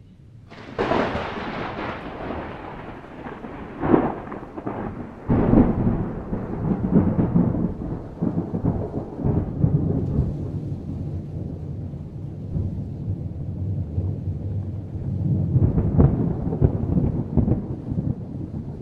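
Thunder: a sharp crack about a second in that fades into a long low rumble, with further claps around four and five seconds in and another later on.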